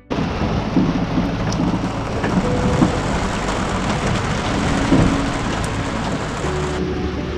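Heavy rain on a sailing yacht: a dense, steady hiss of rain with a low rumble underneath.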